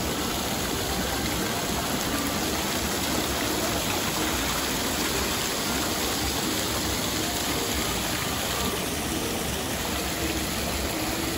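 Water of a glass-panel fountain pouring and splashing steadily: sheets of water running down tall glass walls and small jets falling back into a stone basin.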